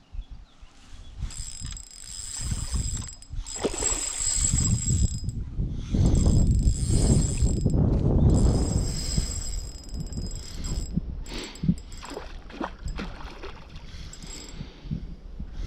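Trabucco Kronos 2000 spinning reel being cranked to retrieve line, giving a steady high gear whine. Rougher handling noise swells under it in the middle and eases off toward the end.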